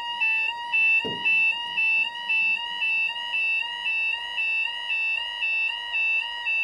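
Level crossing audible warning: a two-tone electronic alarm steadily alternating between a higher and a lower pitch, signalling that a train is approaching and the crossing is closing. A single dull knock about a second in.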